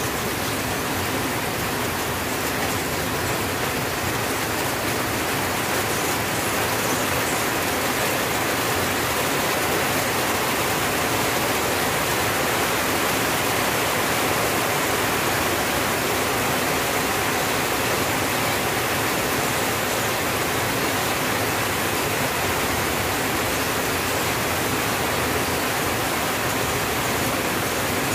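Rain falling steadily on a tin roof: a dense, even hiss with no single drops or pauses standing out.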